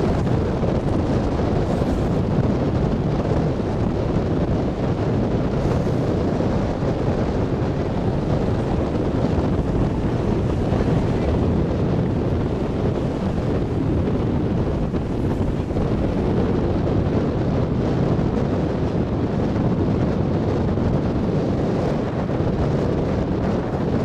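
Steady wind buffeting the microphone on the deck of a moving cruise ship, a constant low rumbling rush with the wash of the sea mixed in.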